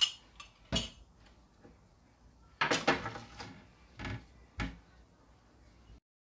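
Kitchen utensils knocking and clinking against a glass mixing bowl and plastic tray as a wire whisk is set aside: a few sharp knocks, a rattling cluster about three seconds in, then two more knocks. The sound cuts off abruptly near the end.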